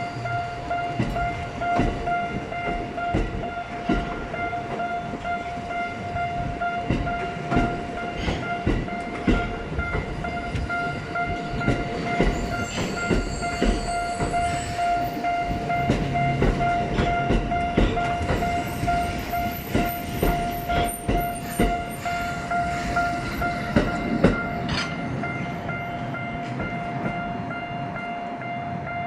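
A Tokyo Metro Ginza Line train rolls slowly over a level crossing, its wheels clicking and clanking over the rail joints, while the crossing's warning bell rings steadily throughout.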